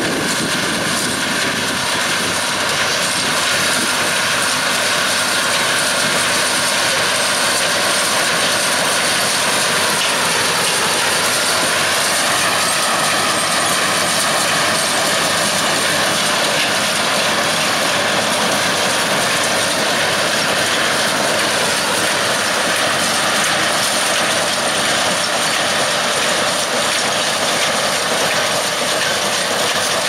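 Massey Ferguson 6190 tractor engine running under load while a Welger AP830 small square baler works, its pick-up and plunger mechanism running with a steady mechanical noise.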